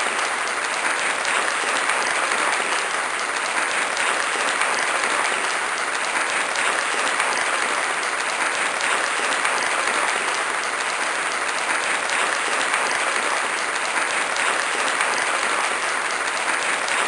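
Audience applauding: many people clapping in a dense, steady wash of claps that keeps an even level.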